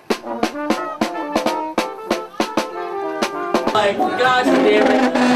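Street brass band playing, with a snare drum keeping a quick, steady beat under the horns. About three and a half seconds in, the band gives way to a different, voice-like sound with a held tone.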